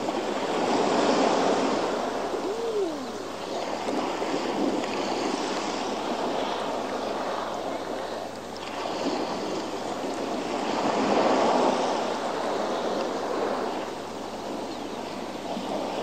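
Sea waves breaking and washing against a rocky shore below cliffs, swelling in two surges, about a second in and around eleven seconds. A short rising-and-falling cry comes about two and a half seconds in.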